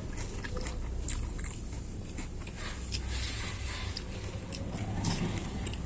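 Close-miked chewing of crispy fried tofu (tahu goreng), with many small, sharp crunches.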